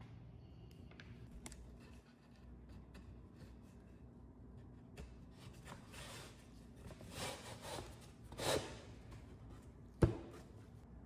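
Wooden desk panel being handled and fitted onto the desk's frame: a few faint clicks, then several seconds of wood sliding and rubbing, and one sharp wooden knock near the end as it is pressed down into place.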